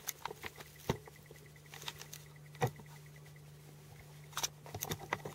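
Handling noise close to the camera as it is settled on a tripod: scattered light clicks and knocks, a few at a time, over a steady low hum.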